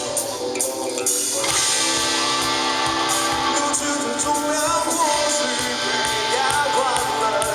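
Live rock band playing, with electric guitar to the fore holding long notes and bending them in the second half.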